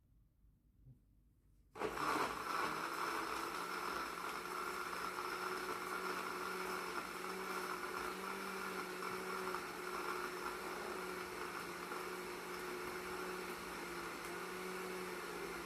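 Countertop blender switched on about two seconds in, running steadily at one speed with a steady motor hum as it blends bananas, berries, ice cubes and milk into a smoothie.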